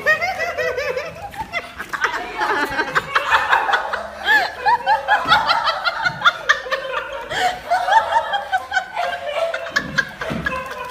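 High-pitched laughter: a long run of short laughs, each rising and falling in pitch, several a second.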